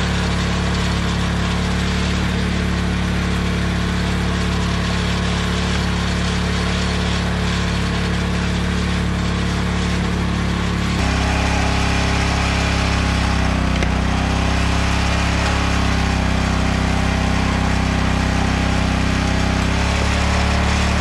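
Small gasoline engine of a hydraulic log splitter running steadily, with its tone shifting slightly about halfway through.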